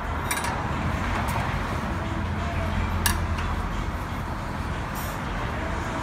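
A few light metallic clinks from hand work at a car's oil drain pan, the sharpest about three seconds in, over a steady low background rumble.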